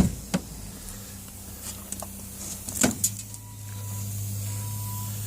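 A sharp knock and a click, then another knock about three seconds in, as things are handled; a steady low hum comes up from about three seconds in.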